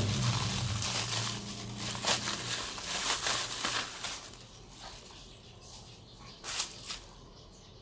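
Bubble-wrap plastic crinkling and rustling as a small part is unwrapped by hand, busiest over the first few seconds, then fainter, with one sharper crackle near the end.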